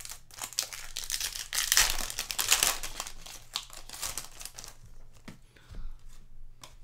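Foil trading-card pack wrapper crinkling and tearing as it is ripped open, a dense crackle for about five seconds, then a few light clicks of cards being handled.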